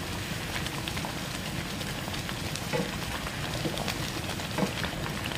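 Thickened crab and corn soup bubbling in a frying pan over a gas flame, a steady crackling hiss with faint scattered ticks, while it is stirred slowly to set the beaten egg into ribbons.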